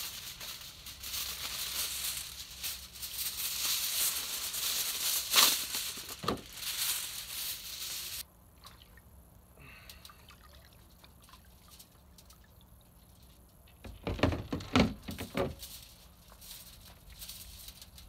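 Aluminium foil crinkling and rustling as a sheet is pulled off the roll and handled, stopping suddenly about eight seconds in. Later, a few seconds of splashing and dripping as a whole catfish is lifted out of saltwater brine in a cooler.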